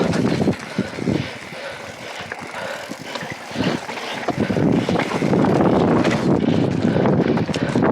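Mountain bike ridden hard over a rough dirt trail: tyres and bike clattering over the ground with many short knocks, and wind on the microphone. It gets louder and denser about halfway through.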